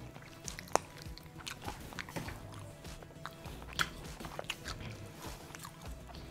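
A person biting into and chewing crispy breaded KFC fried chicken: irregular sharp crunches of the coating with chewing between them, the sharpest crunch about a second in.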